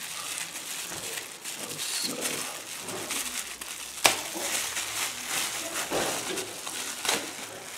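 Plastic bubble wrap crinkling and rustling as hands work it open, with one sharp click about four seconds in.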